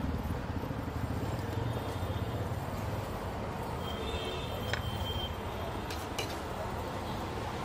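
Steady street traffic noise with a low rumble, broken by a few faint clicks and a brief high tone about four seconds in.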